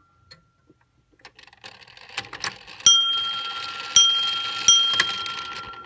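Hand-blown glass bells of an early-1700s Black Forest clock struck by its hammers: a few light clicks, then four strikes over about two seconds, each ringing on with a clear, sustained tone.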